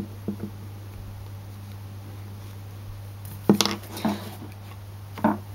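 Fingers handling a small plastic toy doll and its hair clip: light clicks and rubbing, with a few sharper knocks about three and a half seconds in.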